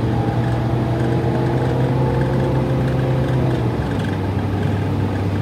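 City bus engine running while the bus drives along, heard from inside the passenger cabin as a steady low drone. Its pitch steps down about two-thirds of the way through.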